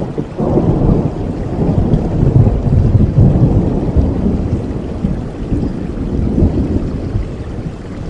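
A long roll of thunder over steady rain. It swells about half a second in, is loudest around two to three seconds, and dies away near the end.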